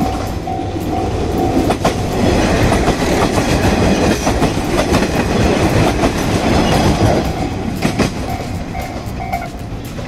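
Iyonada Monogatari diesel tourist train passing close by: a loud rush of engine and running noise with sharp wheel clicks over the rail joints. A level-crossing warning bell rings about twice a second; the train drowns it out for several seconds, and it is heard again near the end.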